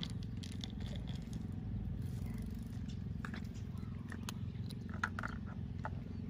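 Black stray cat eating dry kibble, with small irregular crunches as it bites the pellets, over a steady low purr.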